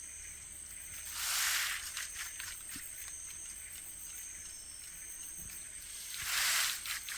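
A plant that rustles loudly when touched, rustling in two short hissy bursts about five seconds apart, each lasting a bit over half a second.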